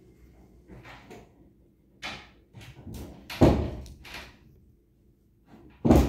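A few short knocks and thuds, the loudest about three and a half seconds in and another strong one near the end.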